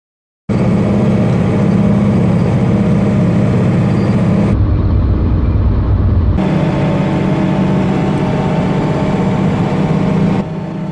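Mercedes-Benz Unimog 1300 L's six-cylinder diesel engine running steadily while driving, heard from inside the cab as a loud low drone. It starts abruptly about half a second in, turns deeper and duller for a couple of seconds near the middle, and drops in level shortly before the end.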